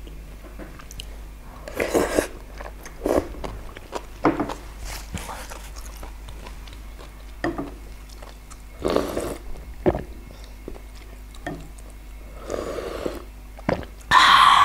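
A person eating soybean paste stew (doenjang-jjigae) from a wooden spoon: close-up chewing and sipping in short, irregular bursts, the loudest near the end.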